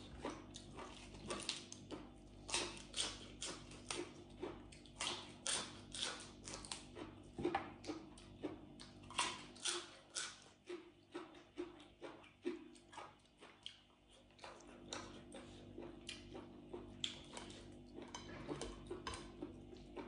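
Close-up chewing and lip smacking while eating spicy rice noodle salad with seafood by hand: a steady stream of short wet smacks, one or two a second, thinning out briefly past the middle, over a faint steady hum.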